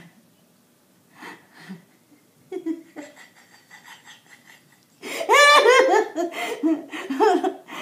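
A few seconds of quiet with faint small sounds, then about five seconds in a woman breaks into loud, high-pitched laughter, peal after peal.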